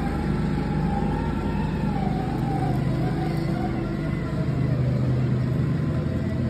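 Steady low hum of an idling vehicle engine, with a fainter tone slowly wavering up and down above it.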